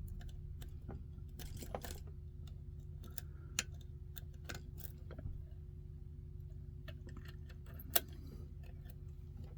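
Scattered small metallic clicks and ticks from a 5-pin euro cylinder lock being handled and reset after being raked open, over a steady low hum.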